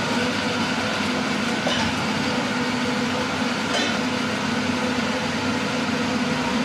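Steady hum and hiss of café machinery running, with two faint clicks about two seconds apart.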